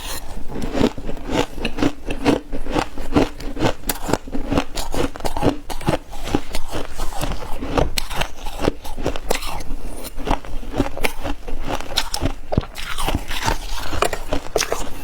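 Close-up crunching and chewing of mouthfuls of soft, dry freezer frost, a dense run of rapid crisp crunches that goes on without pause.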